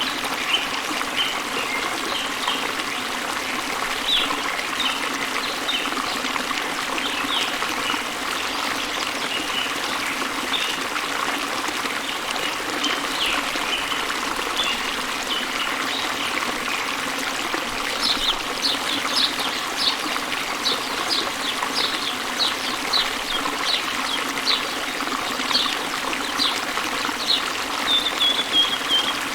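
Steady rush of a waterfall with several birds chirping over it in short, scattered notes. About two-thirds of the way in, one bird starts a fast run of sharp chirps that ends in a brief falling trill.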